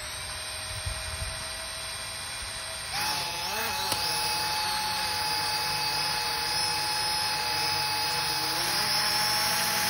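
Snaptain SP-510 quadcopter's motors and propellers spinning on the ground with a steady whine. About three seconds in the whine steps up, louder and higher. It is the bearing whine of a worn motor on the bottom-left arm, a sign that the motor needs replacing.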